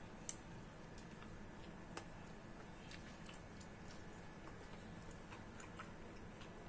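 Faint, irregular ticks and small crackles over a low steady hum, with one sharp click just after the start and another about two seconds in.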